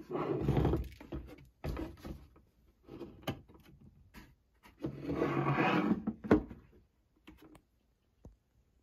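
A hand rubbing and gripping the textured hard plastic shell of a cauldron candy bowl close up, in several scraping bursts with clicks. The longest scrape comes about five seconds in, and the handling stops about seven seconds in.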